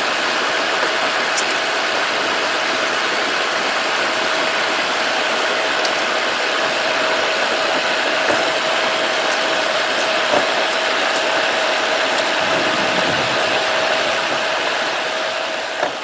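Steady whooshing machine noise with a constant hum running through it and a few faint ticks over it; it fades near the end.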